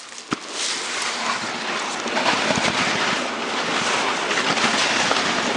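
Steady rushing noise of a moving dog sled: wind buffeting the microphone and the runners hissing over packed snow. A single light knock comes just after the start.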